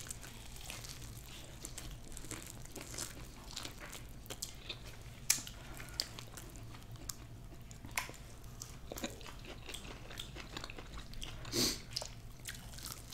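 Close-miked chewing and biting of fried chicken wings, with scattered small wet clicks and crunches.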